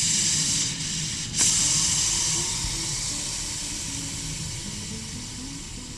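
Steam hissing hard from the release valve of an old 1960s stovetop pressure cooker as the remaining pressure is let off. The hiss breaks off briefly about a second in, comes back louder, then slowly fades as the pressure drops.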